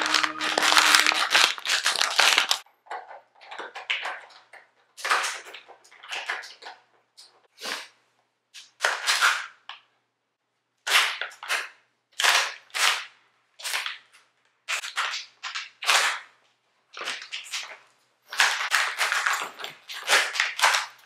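Empty plastic water bottle crinkled and squeezed in a hand: a string of short crackling bursts, roughly one a second.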